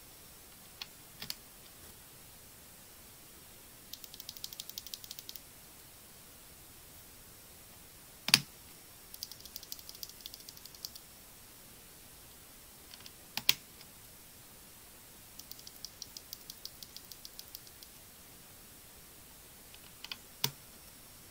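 Plastic clicks from a Redragon CASTOR K631 PRO mechanical keyboard: three runs of rapid light clicks, each followed a few seconds later by one single sharp click that is much louder.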